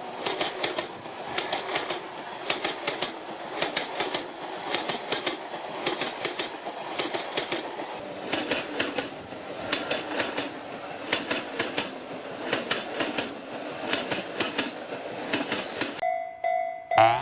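A passing train's wheels clicking over the rail joints in a steady clickety-clack over a running rumble. The train sound stops about a second before the end and is replaced by a short steady chime tone.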